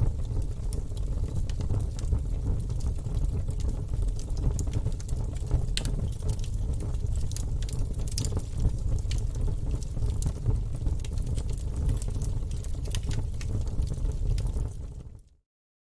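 Wood fire burning in a fireplace: a steady low rumble of flames with scattered sharp crackles and pops from the burning logs. Near the end it fades out to silence for about half a second.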